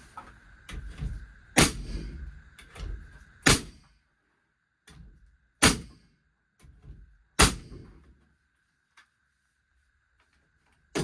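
Four sharp, loud knocks on lumber, evenly spaced about two seconds apart, followed by a few quiet seconds.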